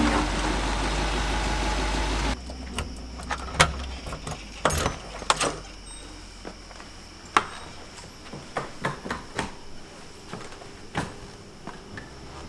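Truck engine running with a steady low hum, cut off abruptly about two seconds in. It is followed by scattered sharp clicks and knocks of a house door's lock and handle being worked and the door opening.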